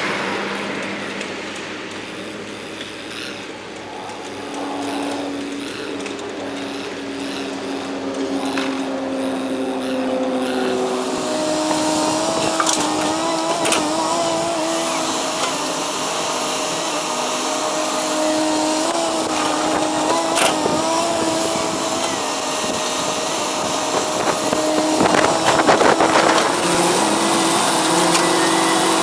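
Heavy construction machinery working: a steady engine hum with a whine that steps up in pitch about eleven seconds in, a few sharp clanks, and a louder rattling burst near the end.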